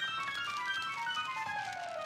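Cartoon score music: a long run of quick notes stepping steadily downward in pitch.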